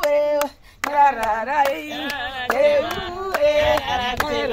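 Group of women singing together with steady hand clapping, the song pausing briefly about half a second in.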